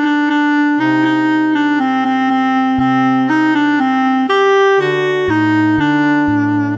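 Instrumental background music: a melody of held notes moving every half second or so over sustained low bass notes, at an even level.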